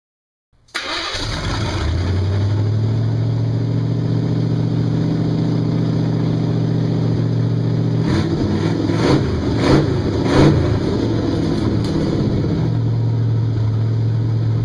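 A car engine starting and then running steadily, with a few seconds of uneven, louder running in the middle before it settles back to an even idle.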